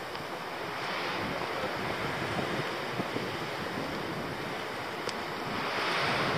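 Wind buffeting the camera microphone: a steady rush of noise that swells a little near the end.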